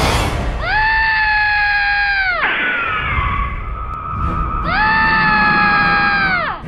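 A monster roar sound effect, played twice: each is a long, high call held for about two seconds that then drops away in pitch, with the second coming about four seconds after the first.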